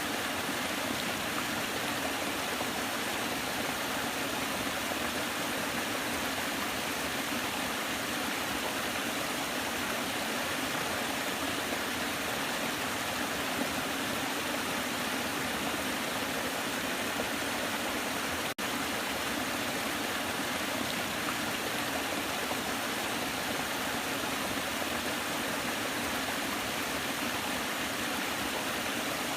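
Waterfall: a steady, unbroken rush of falling water, with one split-second dropout about two-thirds of the way through.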